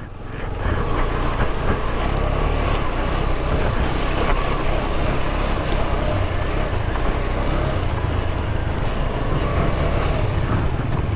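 Motorcycle running on the move, with a steady rush of wind over the microphone and a low rumble.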